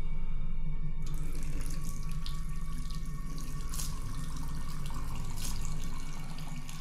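Water running from a tap into a sink, starting about a second in, with a few splashes as a face is washed, over a low steady hum.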